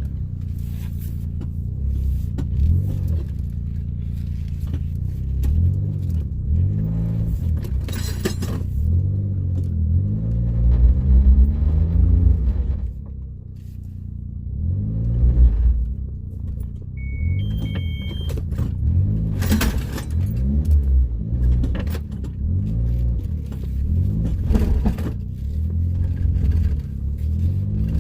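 A vehicle engine running under changing load, its pitch rising and falling again and again, with a few sharp knocks and two short electronic beeps a little past halfway.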